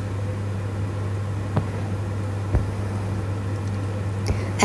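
Steady low electrical-sounding hum with an even hiss, broken by a few faint soft clicks.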